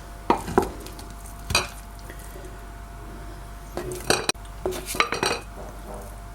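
A spoon clinking and scraping against a jar as a ground ginger-and-garlic paste is spooned into it: a few single knocks in the first two seconds, then quick clusters of clinks about four and five seconds in.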